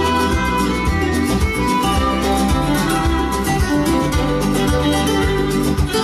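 Recorded instrumental music with string instruments over a steady, repeating bass line, playing through a pair of Vandersteen 2Ci floor-standing loudspeakers driven by a McIntosh MC2500 power amplifier and a Cary SLP 98L valve preamplifier.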